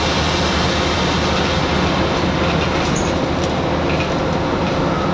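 Scania N94UD East Lancs OmniDekka double-decker bus under way, heard from the upper deck: a steady engine drone and road noise with a constant low hum.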